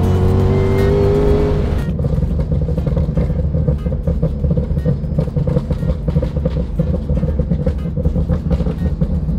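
Shelby GT500's supercharged 5.8-litre V8 heard from inside the cabin, revving up under acceleration with a rising pitch for about two seconds, then switching abruptly to a steadier, lower drone as it cruises.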